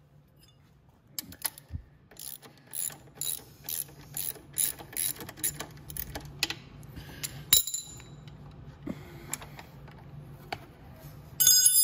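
Socket ratchet clicking in short repeated strokes, about two a second, as the tight nut on the rear shock's lower mounting bolt is loosened; the clicks thin out later, and a brief metallic ring comes near the end.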